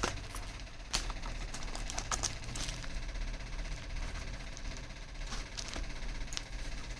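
A handheld spring-loaded chiropractic impulse adjuster clicking, giving several sharp mechanical clicks at irregular intervals. The loudest comes about a second in. A steady low hum runs underneath.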